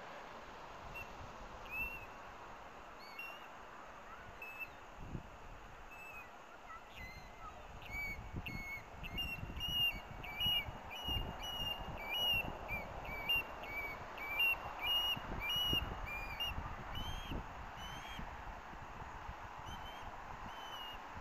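Osprey calling: a series of short, high whistled chirps, scattered at first, then coming rapidly and loudest from about eight seconds in until near the end.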